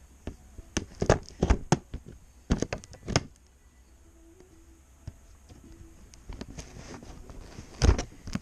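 Cardboard box and plastic packaging being handled during an unboxing: a quick run of sharp taps and knocks over the first three seconds, quieter scraping and rustling, then one louder knock near the end.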